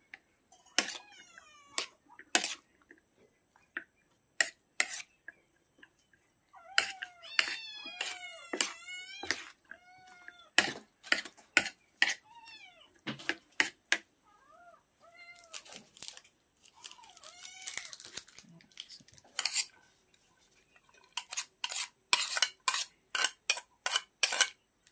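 A cat meowing over and over, a string of arched calls through the middle stretch, among sharp clinks of a metal spoon against dishes as garlic and onion are spooned onto sliced sponge gourd.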